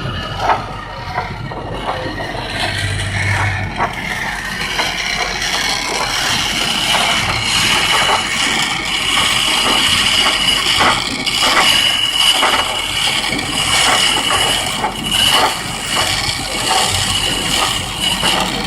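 Chisel cutting a spinning blank of green wood on a foot-powered treadle lathe with a weighted flywheel: a steady scraping hiss broken by frequent short scrapes. A thin high whine comes in about six seconds in and holds.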